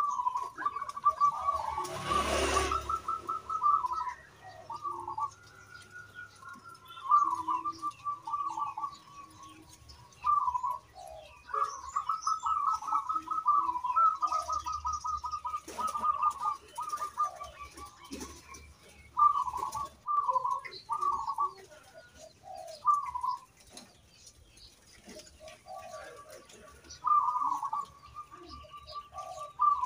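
Local zebra dove (perkutut) cooing: repeated phrases of quick, rolling notes with short pauses between them. A brief noisy rustle comes about two seconds in.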